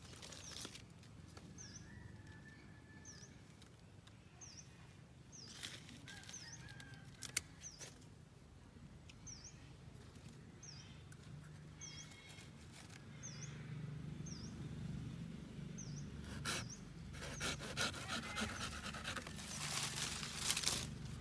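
Leafy branches rustling and pruning shears clicking as a bonsai tree is trimmed by hand, with a single sharp click about seven seconds in and busier rustling near the end. A short, high chirp repeats about once a second throughout.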